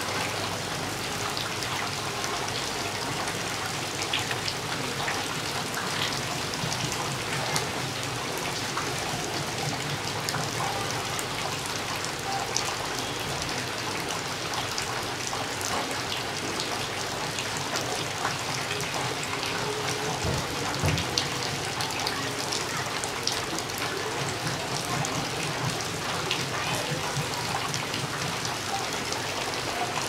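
Heavy rain falling steadily on leafy trees: an even hiss with many separate drop hits scattered through it.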